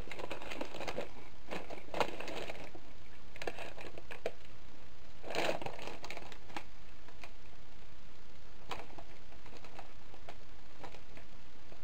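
Dry, air-puffed crisps crunching as a person chews them, in irregular crackly bursts, thickest over the first few seconds and again about five seconds in, then thinning out.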